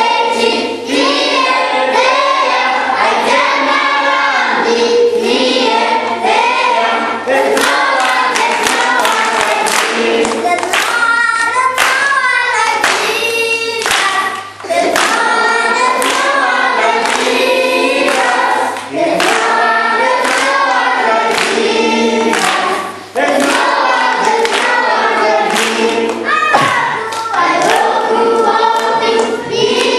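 A choir of school children singing together in Zambia, many voices at once.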